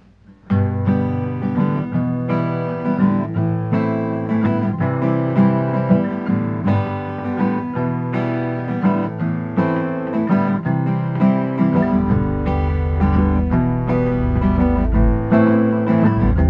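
Background music on strummed acoustic guitar, coming in about half a second in. Deeper low notes join about twelve seconds in.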